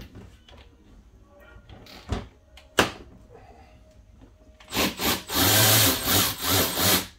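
Hand tools working old, stuck screws in a car's plastic fender liner: two sharp clicks, then about two seconds of loud scraping and rubbing near the end, pulsing a few times a second.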